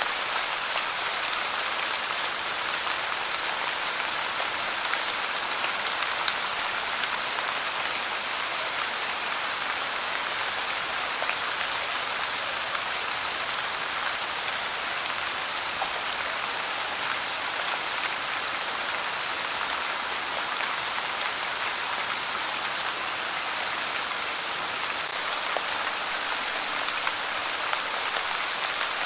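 Light rain falling steadily, an even hiss with scattered faint drop ticks.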